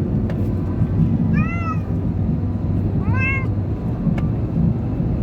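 Munchkin cat meowing twice, each a single rising-then-falling call, over a steady low rumble.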